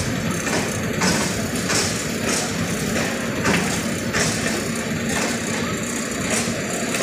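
Passenger train coaches rolling slowly past, their wheels clacking over rail joints every half second to a second over a steady rumble.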